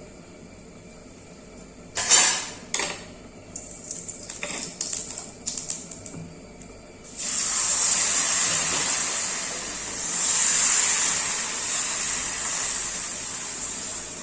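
Two sharp clinks of a utensil on the appam pan, a few light taps, then from about halfway a steady sizzling hiss from the hot pan.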